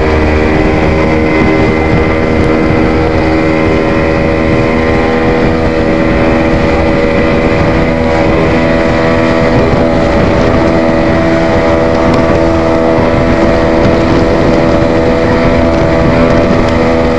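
Small speedboat's motor running steadily at cruising speed, holding one even pitch, over the rush of water and wind.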